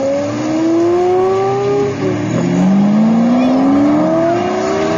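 Pagani Zonda's Mercedes-AMG V12 accelerating hard, its pitch rising, dropping at an upshift about two seconds in, then climbing again.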